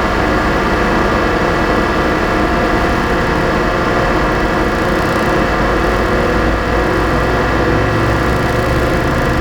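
Dense electronic drone from a two-channel fixed-media piece: many sustained tones stacked over a rough, rumbling low noise, holding steady and loud without a break.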